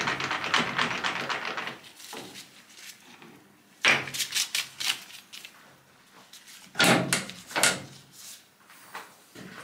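Metal lathe spindle running down, its whir fading away over the first two seconds. It is followed by three short bursts of sharp metallic clunks and rattles as tooling is changed on the lathe's toolpost.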